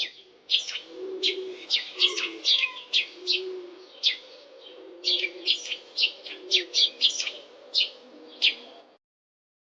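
Sparrow chirping: a rapid series of short, sharp, high chirps, two or three a second.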